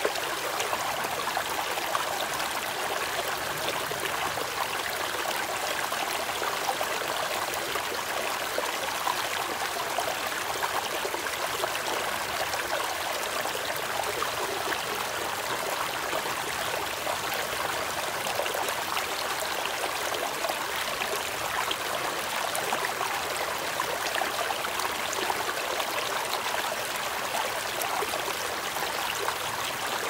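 Shallow rocky stream rushing and splashing over boulders: a steady, even rush of water with no change in level.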